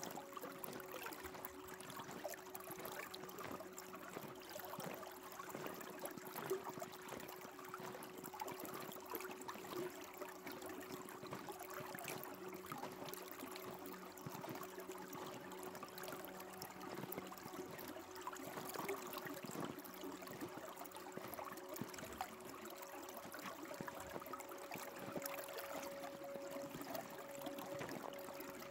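Faint trickling, running water, like a small stream, with two steady low hum tones under it.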